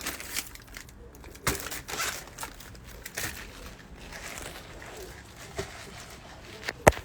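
Rustling and crinkling handling noise with scattered clicks and knocks, the loudest a sharp knock near the end.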